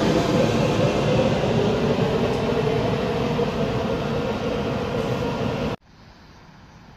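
Train passing close by: a loud, steady rumble of wheels on rail with a faint steady tone through it, easing off slightly. It cuts off abruptly near the end, leaving only a faint background hum.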